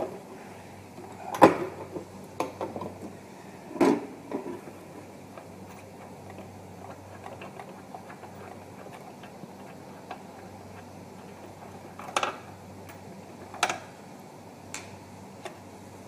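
Stainless-steel machine parts being handled and set down: about five sharp metallic knocks and clinks spread out, the loudest about a second and a half in, over a faint steady hum.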